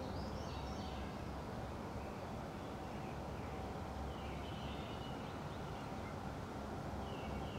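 Quiet outdoor ambience: a low, steady rumble with a few faint bird chirps, three short ones spread through it.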